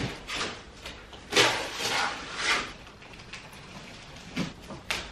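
Flat-pack cardboard box and its packaging being handled, rustling and scraping in a few separate bursts, with a couple of light knocks near the end.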